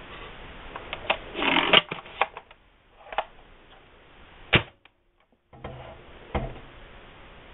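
A modified ERTL toy pump-action shotgun being worked: a run of sharp plastic clicks and knocks with a short sliding rasp about one and a half seconds in. The loudest click comes about four and a half seconds in, followed by a brief cut to silence.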